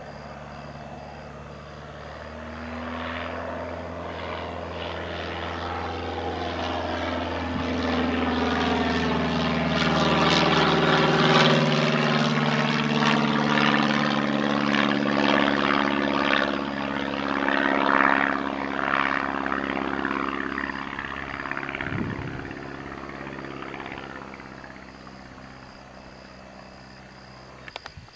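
Continental A-65 four-cylinder air-cooled engine and propeller of a light homebuilt airplane flying past overhead. The drone grows louder to a peak around the middle, drops in pitch as the plane passes, then fades away.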